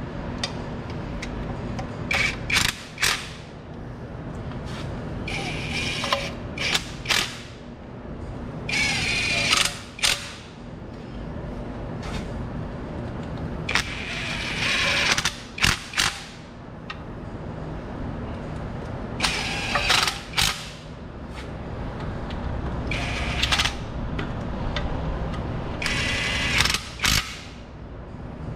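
Red cordless power driver run in about six short bursts of a second or so, with sharp clicks between, as it drives the lower oil pan bolts down one after another.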